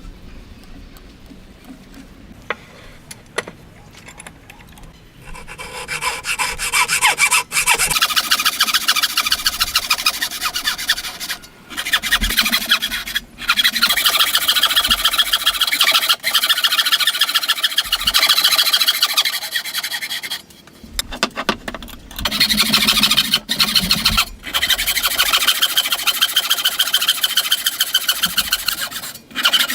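A tool sawing or rasping wood in long, harsh scraping passes with a fast repeating grain to the sound. It stops briefly several times. The first five seconds are quieter, with a few light knocks before the cutting starts.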